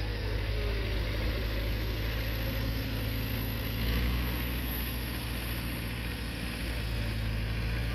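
Tractor diesel engine running steadily as it tows a land leveller across the field.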